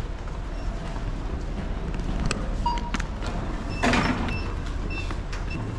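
Airport terminal background noise: a steady low rumble with scattered clicks and knocks. A brief noisy burst comes about four seconds in, followed by a few short, faint electronic beeps.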